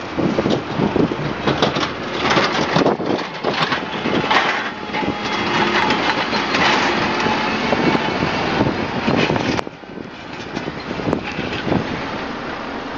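Snow-clearing machinery working close by, including a Cat 924K wheel loader with a plow blade, amid a dense, irregular crunching and scraping of packed snow. The level drops suddenly about ten seconds in.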